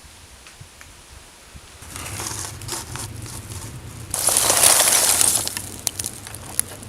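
Crunching, crackling handling noise with scattered clicks, starting about two seconds in and loudest for about a second and a half near the middle, as of dry material being crushed or scraped by hand.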